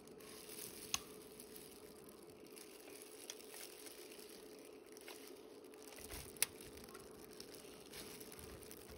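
Faint handling sounds of gloved hands working a raw turkey in an aluminium foil pan: light rustling with a few short sharp clicks, the loudest about six seconds in, over a steady faint hum.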